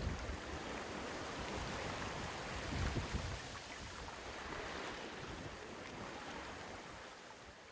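Water rushing and splashing past a sailboat's hull, with wind on the microphone giving a low rumble about three seconds in. The sound slowly fades out toward the end.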